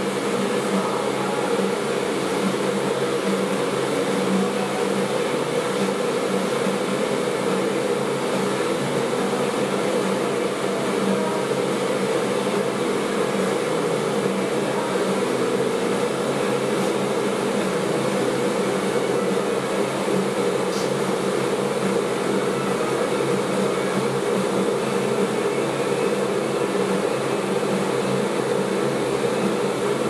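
A steady, unchanging mechanical drone like a running electric motor or fan, with a hum in the low-middle range.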